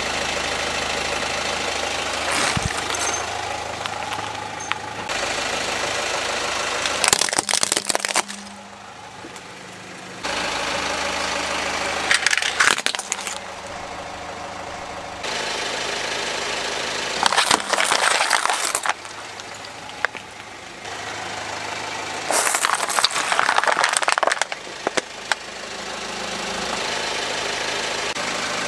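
A car idling while its tyre rolls slowly over objects, with about four bursts of crunching and cracking, each a second or two long, as the things under the wheel are crushed.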